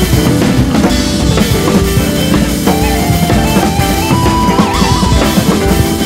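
Background music with a drum kit keeping a steady beat, with guitar.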